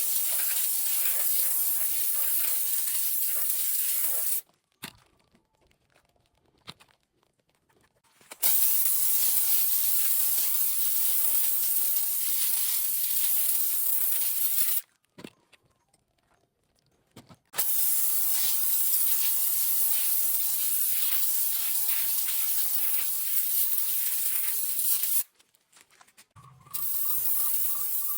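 A hand-pumped foam sprayer's nozzle spraying with a steady hiss in three long bursts of several seconds each, stopping between them. A quieter sound with a faint steady tone comes in near the end.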